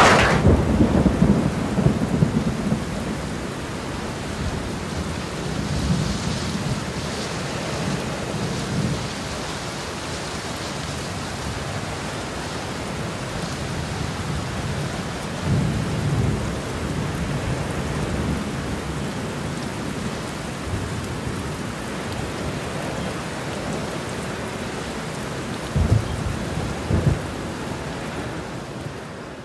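A rainstorm: steady rain with low rolls of thunder, two sharper thunderclaps near the end, fading out at the very end.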